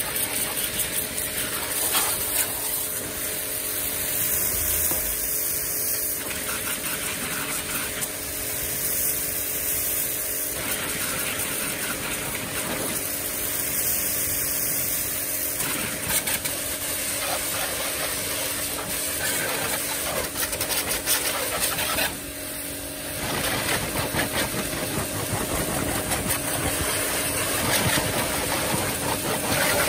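Yamasu mini pressure washer running steadily, its motor and pump humming under the hiss of the water jet spraying onto a motorcycle; the spray sound drops briefly about three-quarters of the way through.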